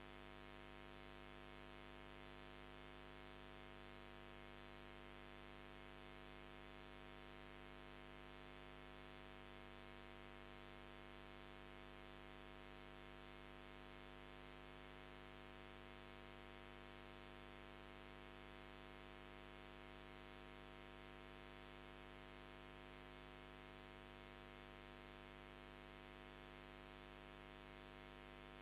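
Near silence filled by a faint, steady electrical hum with many overtones, unchanging throughout.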